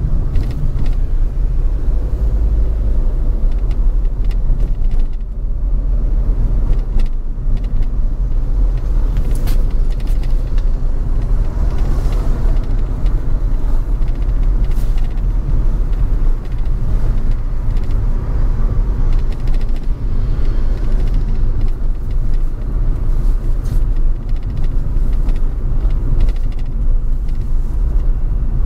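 Road noise of a car driving: a steady low rumble with a few brief clicks.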